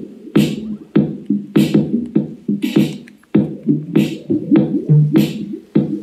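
Electronic beat music playing through a Boat Stone 350 portable speaker, with sharp beats a little under twice a second over a dense bass line.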